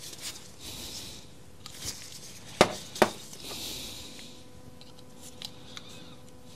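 Metal tools and parts handled while a retaining ring (circlip) is worked off the saw's gear shaft: two sharp metallic clicks about half a second apart near the middle, with light rubbing and a few small ticks around them.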